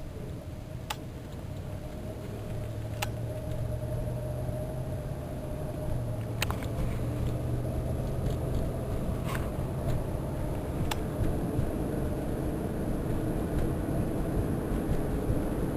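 Inside the cabin of a 1994 Cadillac DeVille on the move: a low engine hum and road noise that grow steadily louder as the car picks up speed, with a few sharp clicks now and then.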